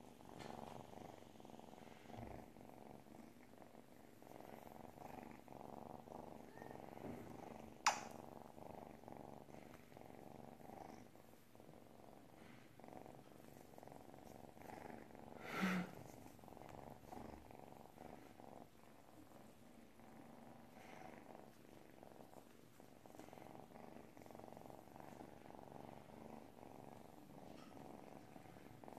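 Hairless kitten purring steadily, close up, as it rubs its face against a man's cheek. A sharp click cuts in about eight seconds in, and a brief louder noise about sixteen seconds in.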